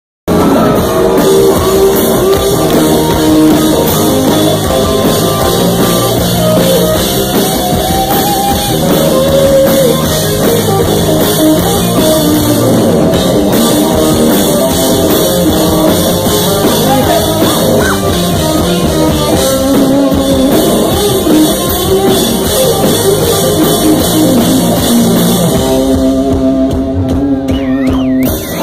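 Rock band playing live: electric guitars, bass and a drum kit with lead singing, heard loud and close from the crowd.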